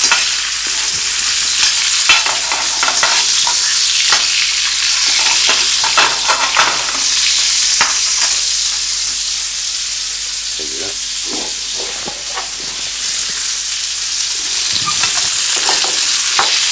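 Pieces of veal kidney sizzling in hot oil in a frying pan over high heat, with the clicks and scrapes of a fork turning them against the pan.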